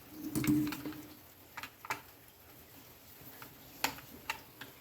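Scattered light clicks and taps as the chainsaw's chain and bar are handled and the chain tension is adjusted and checked for slack, with a short rumble of handling in the first second.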